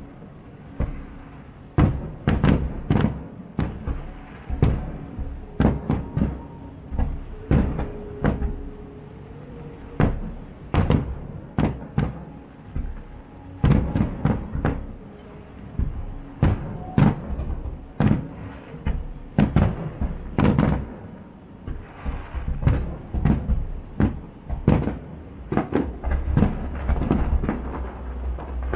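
Fireworks display: aerial shells bursting in an irregular barrage of sharp booms, often several in quick succession, each trailing off briefly.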